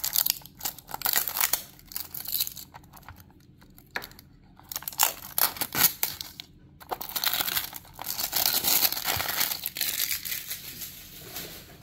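Packaging being crinkled and torn open by hand: irregular rustling and crackling, sparse at first, then a denser, longer stretch in the second half.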